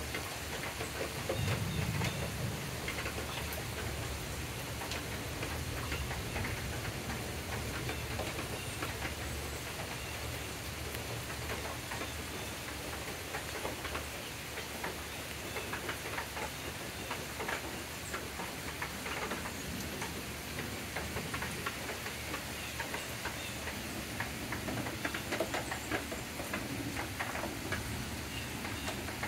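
Steady rain falling on leaves and a wooden deck, with many single drops ticking close by. A brief low rumble about two seconds in.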